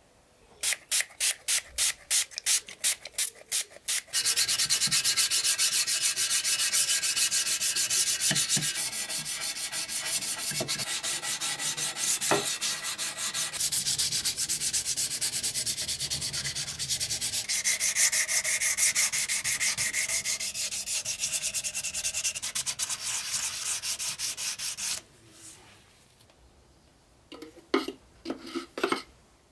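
Hand sanding of powder-coated pressed-steel Tonka toy-truck parts with sandpaper. It starts as separate strokes, about three a second, then becomes fast continuous scrubbing back and forth. A few light clinks follow near the end.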